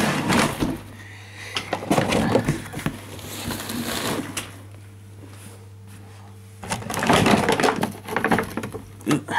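A Product Enterprise movie Dalek toy being taken out of its cardboard box and packaging: rustling, scraping and knocks, with a quieter lull midway and a steady low hum underneath.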